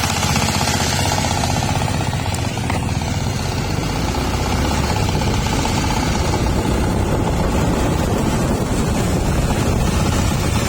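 Engine of a rice-threshing machine running steadily with a fast, even chugging beat.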